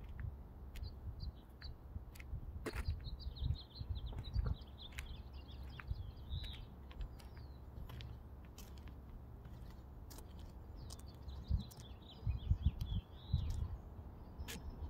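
Small birds chirping in quick, high twitters, over a steady low rumble that swells in a few louder bursts near the end, with a few sharp clicks.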